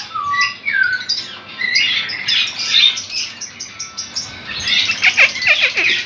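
Several caged songbirds calling and singing over one another. There are short falling whistles at first, then a dense run of quick downward-sweeping chirps from about five seconds in.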